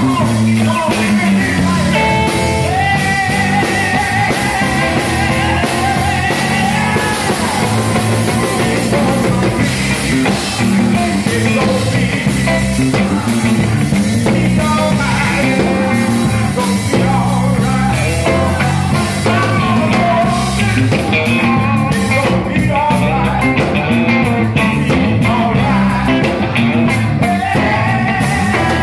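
Live church gospel music: a man singing into a handheld microphone over loud instrumental backing with percussion.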